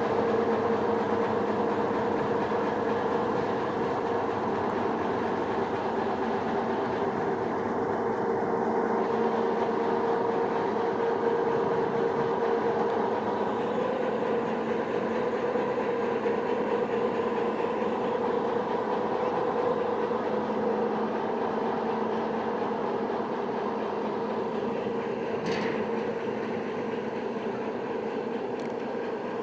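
Railway turntable turning under load, giving a steady mechanical drone with a low hum. Two faint clicks come near the end.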